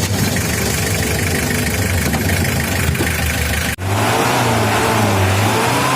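Diesel engine of a 1985 Toyota Hiace, freshly serviced rotary injection pump, running evenly and sounding normal. About two-thirds in the sound cuts out for an instant, and afterwards the engine runs at a slightly higher pitch.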